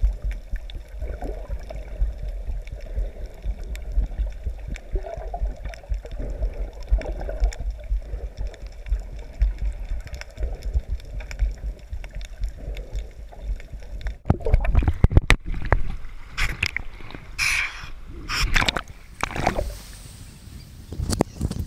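Muffled underwater sound from a GoPro in its waterproof housing: low, irregular rumbling and gurgling of water moving around the camera. About two-thirds of the way through it gives way to loud splashing and sloshing water.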